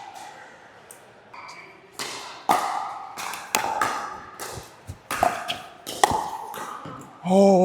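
Pickleball rally: paddles striking the hard plastic ball in sharp, irregular pops, a few each second, with ball bounces between. Near the end a player lets out a long, falling 'ohh'.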